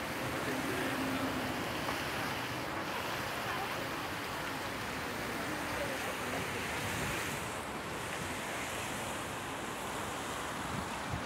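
Steady outdoor rushing noise, with wind blowing across the microphone and no distinct events.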